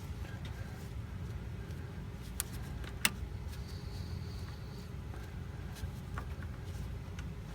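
Two sharp metallic clicks about two and a half and three seconds in, with a few faint ticks later, as a coolant hose and its fitting are worked by hand against metal, over a steady low background rumble.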